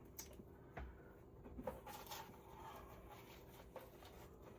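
Near silence: a faint steady hum with a few soft clicks in the first two seconds.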